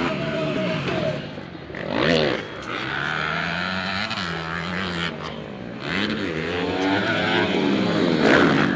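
Motocross bike engines revving up and down as the riders race round the dirt track. One bike passes loud and close about two seconds in and another near the end.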